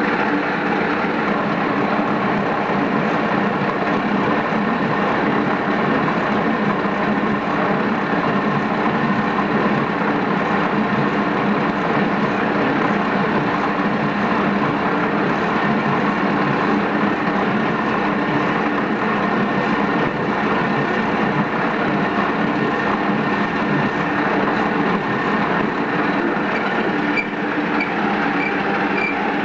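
Metal lathe running steadily, its motor and gears giving a constant hum with several steady tones while it machines a steel part.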